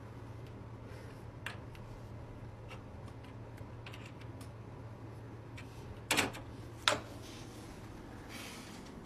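Plastic chess pieces clicking on a small folding chess board: a few light taps, then two louder knocks about six and seven seconds in, over a low steady hum.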